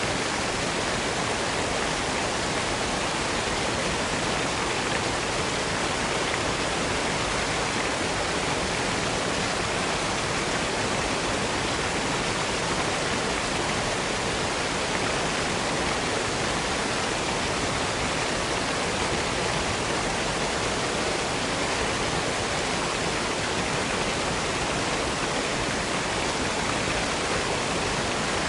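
Waterfall: falling water rushing steadily and evenly, with no change.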